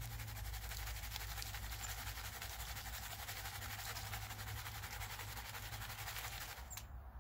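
Wet gravel and sand swishing and grinding in a plastic gold pan as it is shaken in a tub of water during gold panning, a steady gritty sound that stops abruptly near the end.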